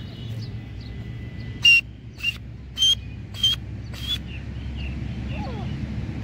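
Grey francolin calling: five loud, sharp notes about half a second apart, each a little higher-pitched than the last, followed by a few softer notes.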